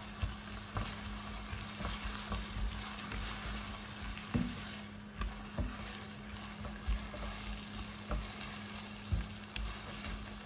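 Sliced okra and onions sizzling as they fry in hot oil in a pot, while a spatula stirs them and knocks and scrapes against the pan now and then. A steady low hum runs underneath.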